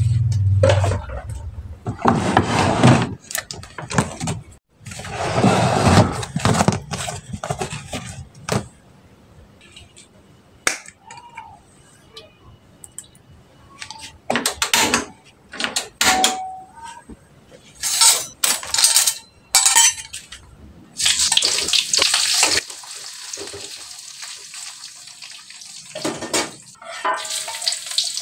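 Kitchen work: dishes and utensils clinking and knocking, with short runs of tap water from time to time.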